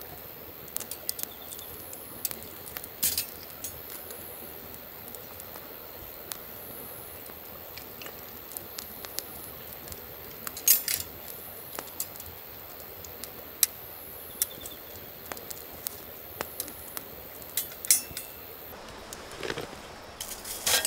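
Wood campfire crackling, with sharp, irregular pops and light clinks, over a steady high hiss that cuts off near the end.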